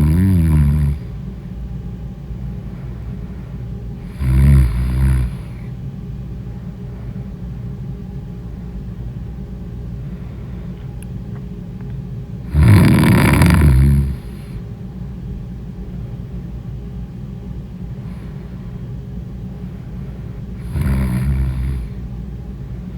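A sleeping person snoring loudly, with long, pitched snores about eight seconds apart: one ending about a second in, then three more. A steady low rumble fills the gaps between them.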